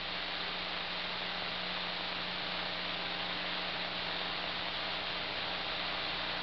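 Steady hiss with a low electrical hum on the aircraft's intercom/radio audio feed, with no one transmitting.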